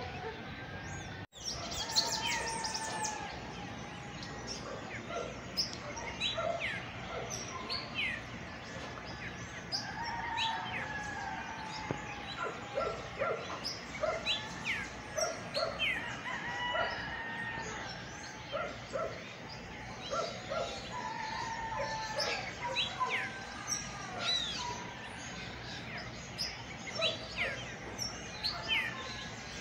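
Birds chirping and calling at dawn: many short, quickly falling chirps repeated over and over, with other calls under them and a steady outdoor hiss. The sound drops out briefly about a second in.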